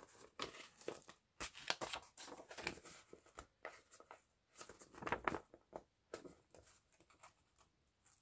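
Paper pages of a small vintage children's picture book rustling and crinkling as they are handled and turned, in quick irregular crackles that thin out near the end.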